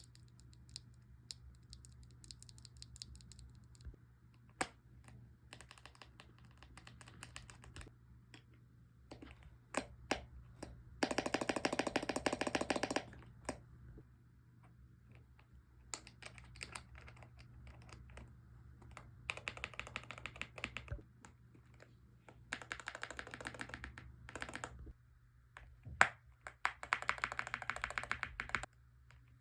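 Mechanical keyboard being typed on: bursts of fast, dense key clicks, the loudest run about a third of the way in and more runs later, with scattered single keystrokes between.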